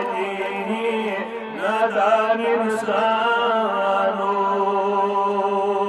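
A man chanting a nazm, a devotional poem, in a melodic voice: gliding phrases at first, then one long held note through the second half.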